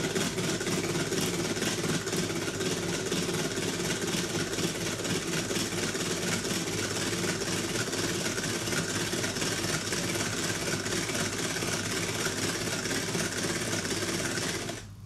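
Tupperware Speedy Chef 2 hand-cranked whisk cranked steadily, its plastic gears and beaters running continuously as they whip egg whites. It stops abruptly shortly before the end.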